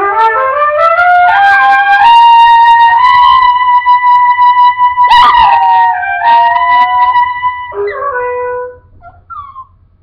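A trumpet playing with a Maltese–shih tzu puppy howling along to it. The trumpet climbs in steps to a long high held note, while the howl slides and wavers in pitch around it. Both stop suddenly near the end.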